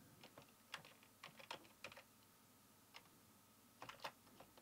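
Computer keyboard being typed on: faint, irregular keystrokes in small clusters, with a pause of about a second and a half after the middle and a quick run of keys near the end.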